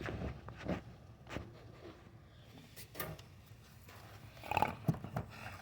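A few scattered light knocks and clicks, spaced about a second apart, with a quick cluster of them near the end.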